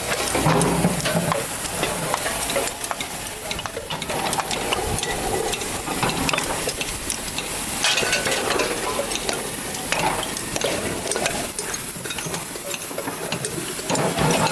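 Compressor parts being broken apart and handled for scrap metal: a dense run of small scrapes, clinks and crackles with no single loud strike.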